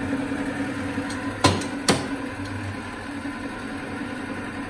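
Sysform D-50P semi-automatic paper drill's motor running steadily with a steady hum, and two sharp clicks about a second and a half and two seconds in.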